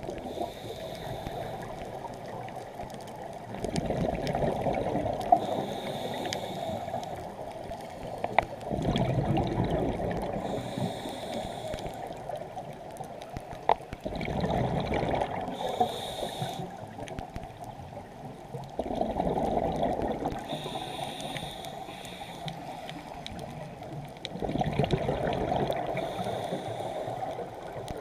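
Scuba diver breathing through a regulator underwater: a rush of exhaled bubbles about every five seconds, five times, with a short hiss of the inhale between each.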